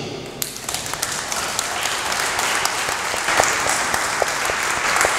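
Audience applauding: a burst of hand clapping that starts about half a second in and fills out into steady applause.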